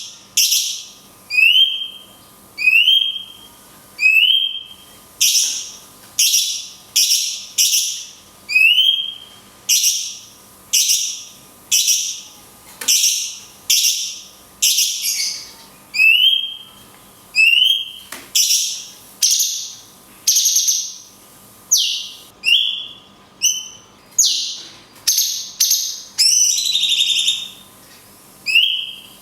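A cucak cungkok songbird repeatedly giving its long 'kunti' shot call: loud, harsh, high bursts, each often with a short slurred whistle, about one every second or so.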